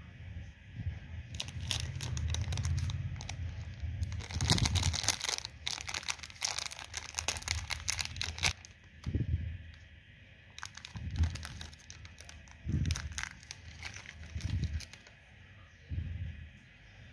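Thin plastic candy-packet wrapper crinkling and tearing as it is opened by hand: dense crackling for several seconds, then sparser crinkles with a few soft low thumps as the jellies are handled.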